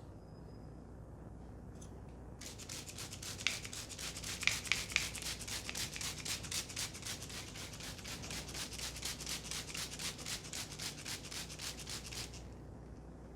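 Hands rubbing fast and rhythmically over hair and scalp in a head massage, about four strokes a second. The rubbing starts about two seconds in and stops about a second before the end, with a few louder strokes early in the run.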